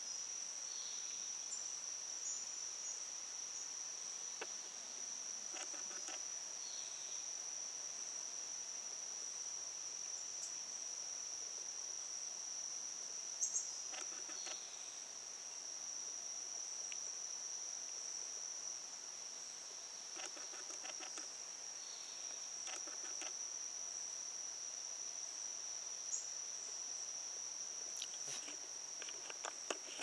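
A continuous high-pitched insect trill holds steady throughout, with scattered short bird chip notes and several brief runs of rapid clicks.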